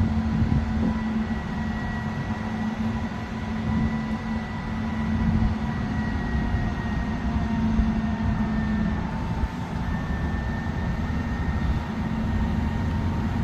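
Heavy machinery running steadily: a low drone with fainter whining tones over it. The drone shifts slightly in pitch about nine seconds in.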